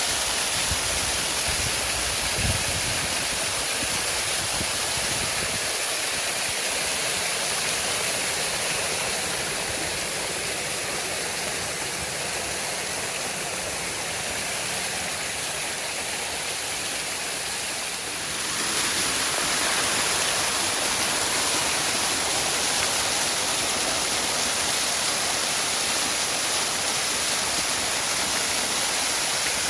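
Waterfall: water falling and rushing in a steady, dense hiss, with a brief low bump about two seconds in. The sound gets slightly louder and brighter about two thirds of the way through.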